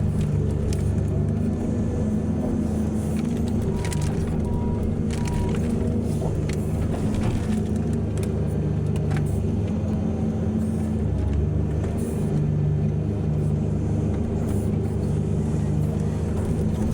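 Large diesel engines of an excavator and dump trucks running steadily under load, with scattered knocks and clunks. Three short beeps sound about four to five seconds in.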